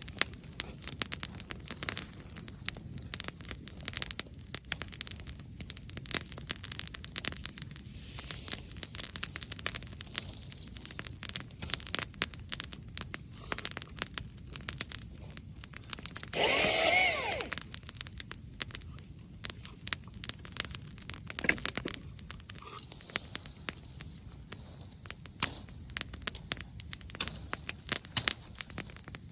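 Wood bonfire burning cut branches, crackling and popping irregularly. About two thirds of the way through there is one brief louder sound lasting about a second, with a rising-and-falling pitch.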